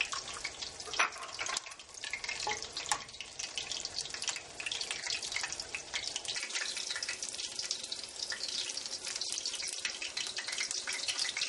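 Batter-coated chicken breasts frying in hot vegetable oil in a deep pan, a steady crackling sizzle, with eggs frying in butter in a small skillet alongside. A few sharper clicks stand out in the first three seconds.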